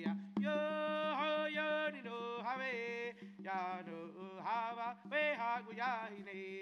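Haudenosaunee social dance song: voices chanting over a fast, steady drumbeat that carries a low pitched drum tone.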